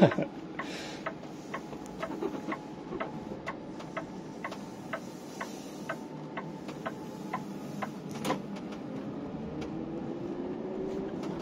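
Hyliion ERX electric truck cab, very quiet while under way: low road and drivetrain noise with a steady ticking about twice a second, and an electric-drive whine that rises in pitch near the end as the truck gains speed.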